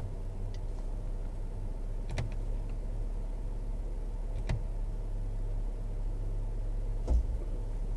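Chevrolet Silverado Trail Boss pickup's 5.3-litre V8 heard from inside the cab while driving: a steady low drone, with three sharp knocks about two, four and a half and seven seconds in, the last with a low thump.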